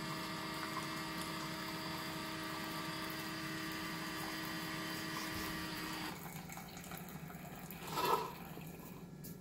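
Keurig K-Compact single-serve coffee maker pumping hot water through into a mug during a cleaning brew: a steady pump hum over the pouring stream. The pump and pour stop abruptly about six seconds in, followed about two seconds later by one short burst of sound, the loudest moment, as the brew ends.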